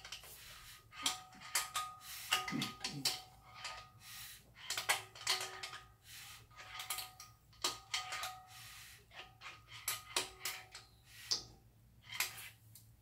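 Crankshaft of a bare Datsun L28 straight-six block being turned by hand from the rear of the crank, with irregular metallic clicks and short scrapes, some ringing briefly.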